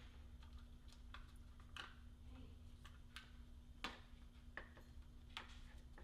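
Faint, scattered clicks and taps of plastic as the smart lock's small wire plugs and interior housing are handled and the cables tucked in, about a dozen over a few seconds, the sharpest nearly four seconds in. A faint steady hum runs underneath.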